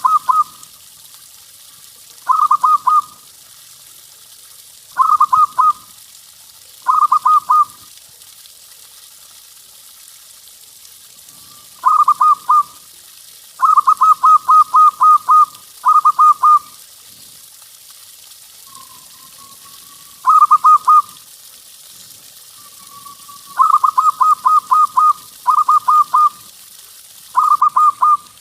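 Zebra dove (perkutut) cooing in short phrases of quick, stuttering notes, about eleven phrases with gaps of one to four seconds. A few phrases run longer, six to eight notes. A steady hiss runs underneath.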